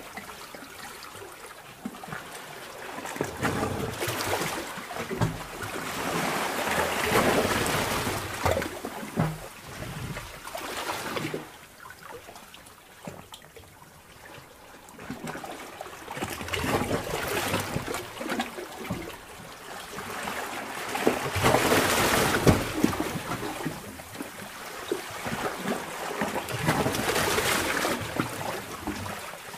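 Sea cave water ambience heard as if underwater: water surging in slow swells that rise and fade every five seconds or so, with many small clicks and splashes throughout.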